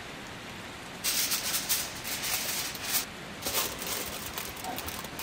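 Food being stirred in a hot metal cooking pot: a steady low hiss, then from about a second in, two spells of loud rattling sizzle.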